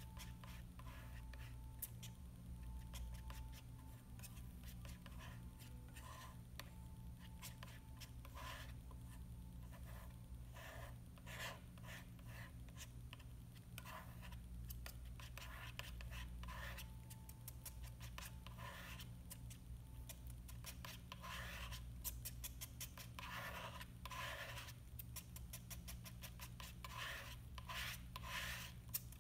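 Metal palette knife scraping and smearing thick oil paint on a painting board in short, irregular strokes, over a steady low hum.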